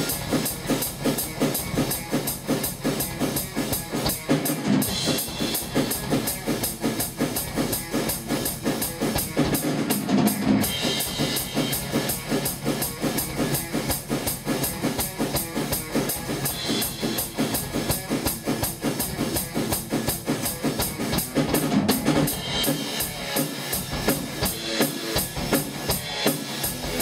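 Drum kit played at a fast, steady thrash-metal beat, with cymbal crashes every five or six seconds.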